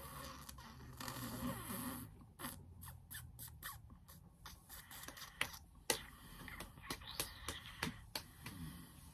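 Handling noise: soft rustling and scraping, then scattered small clicks and scrapes, with a few sharper clicks in the second half.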